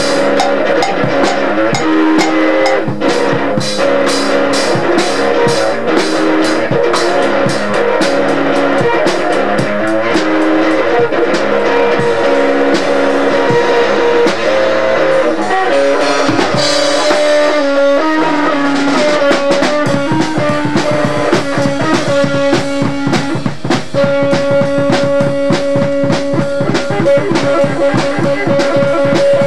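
Guitar and drum kit playing together in a loose, noisy jam, the drums keeping a steady beat under held and repeated guitar notes. The low end thins out for a few seconds past the middle, then the full beat comes back.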